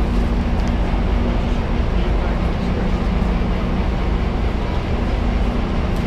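Steady low drone of an idling passenger train standing at the platform, with a constant two-tone hum, under a murmur of voices.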